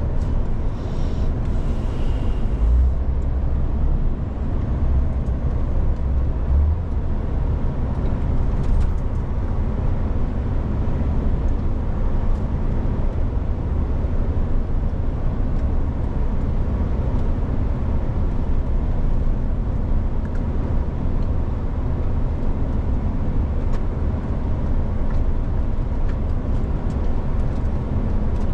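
Steady low rumble of a lorry driving along the road: engine and tyre noise.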